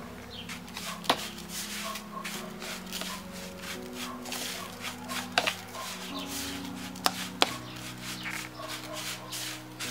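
A fork stirring and scraping through grated parmesan and breadcrumbs in a bowl: a quick run of scratchy rustling strokes, with a few sharp clicks where the fork hits the bowl.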